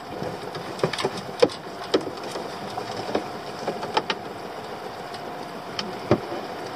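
A pot line being hauled hand over hand over the gunwale of a small boat: irregular clicks and knocks, with a stronger knock about six seconds in, over a steady background hum.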